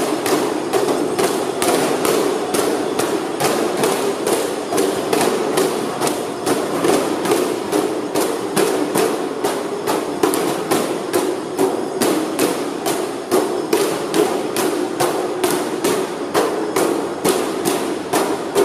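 A crowd of protesters banging in unison, a steady beat of sharp strikes at about two and a half a second, over a continuous crowd din.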